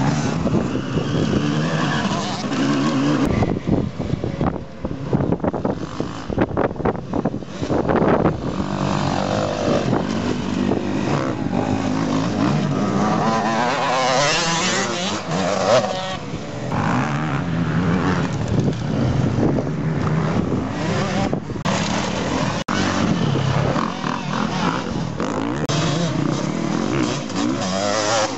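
Motocross dirt bike engines running on a track, revving up and dropping back repeatedly as the bikes accelerate and pass, with more than one bike heard at times.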